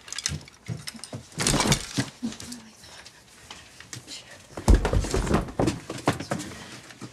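Rummaging and packing in a clothes closet: rustling, scattered clicks and clatter, with a heavy thump about two-thirds of the way through.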